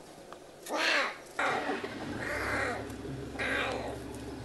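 Lion cub mewing: about four short, high cries, each bending in pitch and spaced roughly a second apart.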